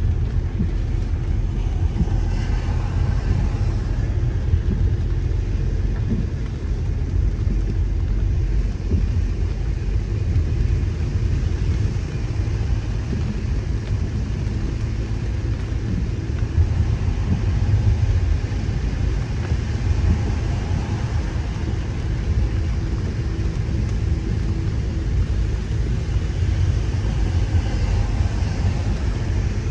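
A car driving on a wet road, heard from inside the cabin: a steady, mostly low-pitched noise from the engine and the tyres.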